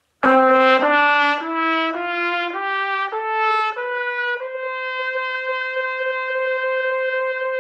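Trumpet playing an ascending one-octave D major scale: seven short notes stepping up evenly, then the top note, the high D, held steady for about three and a half seconds until it stops near the end.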